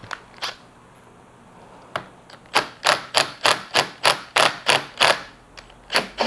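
Makita cordless impact driver hammering on the 5 mm hex bolt of a KYMCO KRV180's handlebar-end weight to loosen it. It goes in a regular run of sharp rattling bursts, about three a second for a couple of seconds, with two more near the end. A few lighter clicks come before it.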